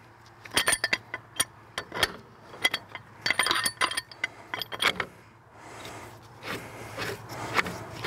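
Steel pipe wrench clinking and rattling against the hydraulic cylinder's steel rod end as it is lifted off and set back on: a quick run of sharp metal clinks in the first five seconds, then a softer scraping.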